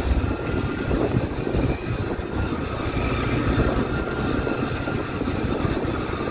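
Ride noise from a moving scooter: its engine running under a steady, uneven low rumble of wind and road noise.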